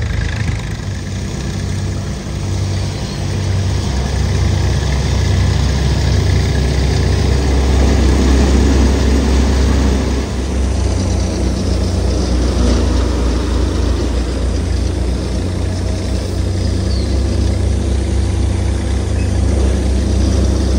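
Avtar multicrop thresher running at working speed, driven by a tractor: a loud, steady mechanical drone of engine and threshing drum.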